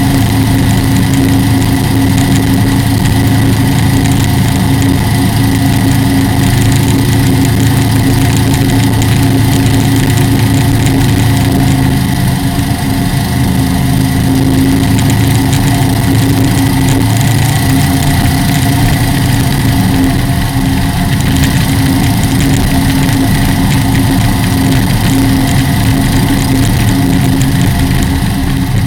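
Chevrolet ZZ4 small-block V8 of an aluminum-hulled race boat running steadily at speed, heard on board. Its 180-degree headers give it an even, un-V8-like exhaust note. The engine eases slightly a couple of times.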